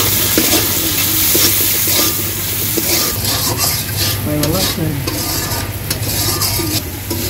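Anduli frying in oil in a steel karahi, sizzling steadily, while a metal spatula stirs through it and scrapes against the pan.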